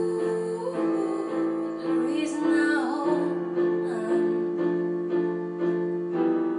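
Piano playing sustained chords, with a singing voice carrying a wavering, gliding line over it around the middle.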